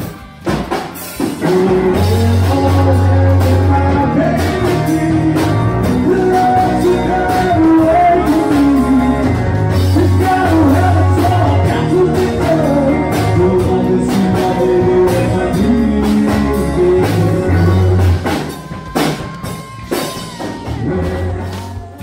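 Rock music with guitar and drums over a heavy bass line. It comes up loud about two seconds in and drops back for the last few seconds.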